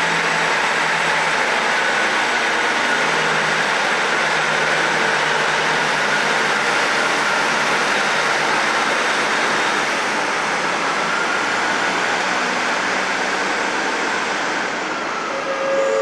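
Class 158 diesel multiple unit in Regional Railways Express livery pulling out, its underfloor diesel engines and wheels making a loud, steady noise with a faint whine that wavers in pitch.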